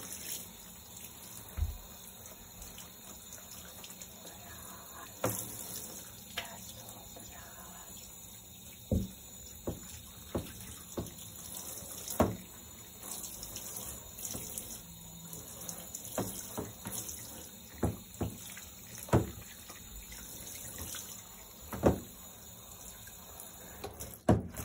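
Handheld shower head spraying water onto a cat in a bathtub: a steady hiss of running water, with occasional short knocks scattered throughout.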